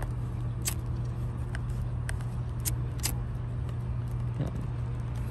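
A disposable lighter's flint wheel being flicked, giving about five sharp clicks over the first three seconds or so, with a steady low hum underneath.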